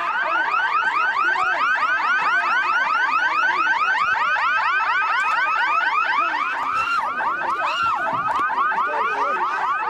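Electronic vehicle siren in a fast yelp: a rapid, unbroken train of rising wails, about seven a second.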